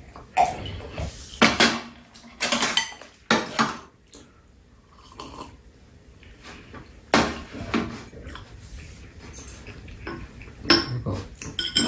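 Tableware clinking during a meal: chopsticks and a fork tapping on ceramic plates and mugs set down on a metal serving tray, about half a dozen separate sharp clinks and clatters with quieter gaps between.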